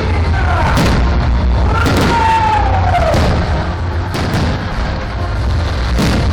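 Fireworks going off: several sharp bangs of shells bursting, with whistling fireworks falling in pitch between them, over a steady low rumble.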